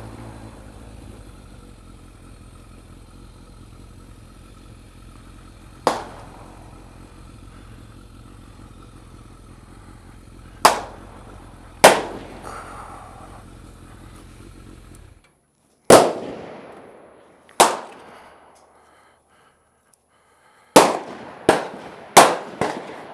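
Gunshots at an outdoor shooting range: about nine sharp single reports, each trailing off in an echo, scattered at first and then four in quick succession near the end. Under the first two-thirds a Kawasaki ZRX1200R motorcycle engine idles low and steady, then cuts off abruptly.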